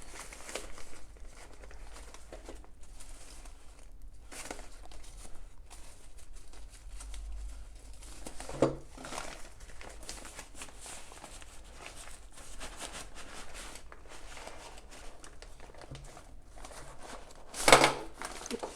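Plastic packaging rustling and crinkling as a tripod is unpacked, with a louder crackle a little past halfway and the loudest one near the end.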